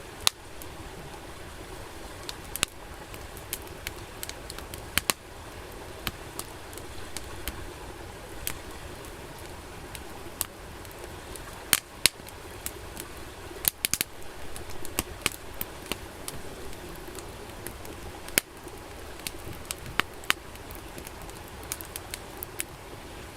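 Wood campfire crackling: a steady low rush of burning broken by frequent irregular sharp pops and snaps.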